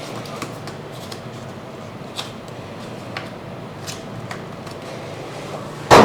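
Unboxing handling noises: a few faint clicks and light handling over a steady low room hum, then one loud knock near the end as something is set down.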